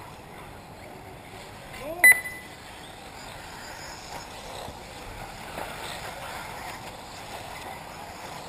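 Steady outdoor background noise, with one short, loud, high-pitched beep about two seconds in.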